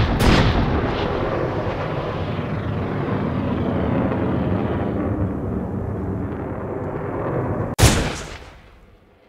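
Gunshot sound effects: a couple of sharp shots at about two a second at the start, then a dense, steady rumble of gunfire for several seconds, ended near the end by one loud sharp shot that dies away.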